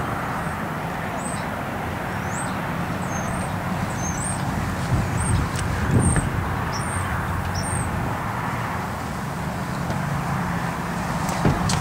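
Steady low outdoor rumble with a small bird chirping a quick string of short, high notes through the middle. A light knock comes about halfway through.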